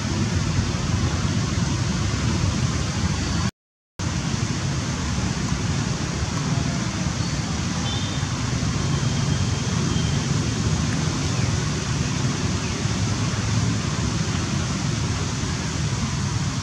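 Steady rushing background noise with no clear source, broken by a short dropout to silence about three and a half seconds in.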